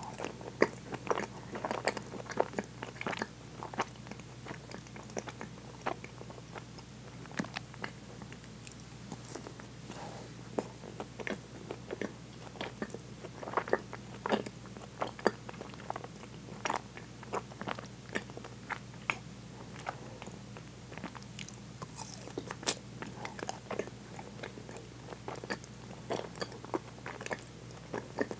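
Close-up biting and chewing of a frozen chocolate-coated ice cream bar: the chocolate shell cracks in many short, crisp crunches, irregular and continuing throughout.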